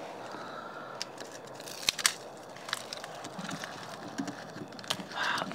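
Dry leaves and gravelly soil crunching and crackling, with a few sharp snaps over a steady rustling.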